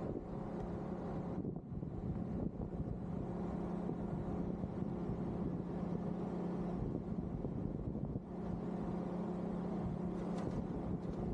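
A motor running with a steady low hum, easing off briefly twice, over a background of rushing noise.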